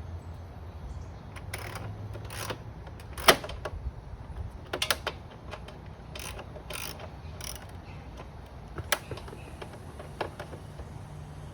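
Hand tools clicking and clinking against metal fittings as a bolt on a motorcycle exhaust is tightened: irregular sharp clicks, the loudest about three seconds in and a quick cluster around five seconds, over a steady low hum.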